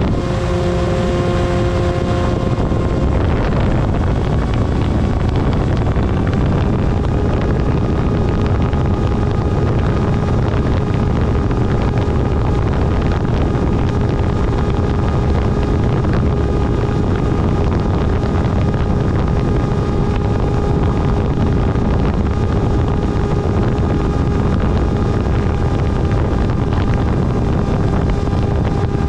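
Electric motor and propeller of an RC plane running at steady cruise, a steady hum with overtones, under heavy wind rush on the onboard microphone. The hum shifts to a different pitch about three seconds in.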